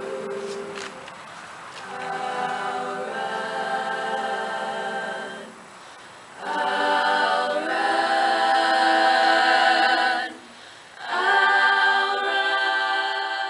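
A girls' choir singing a cappella in held chords, breaking off briefly about six and about ten and a half seconds in, and singing louder after the first break.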